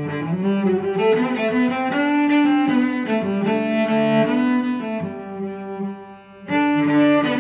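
Background instrumental music of held melodic notes. It dips briefly almost to nothing about five and a half seconds in and comes back a second later.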